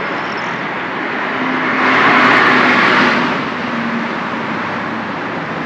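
Steady outdoor traffic noise, with a vehicle passing by that swells into a whoosh about two seconds in and fades a second or so later.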